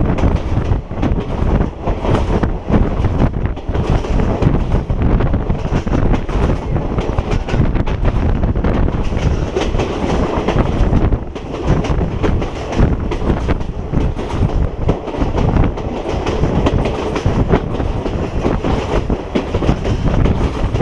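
Train running along the track, its wheels clattering steadily over the rails.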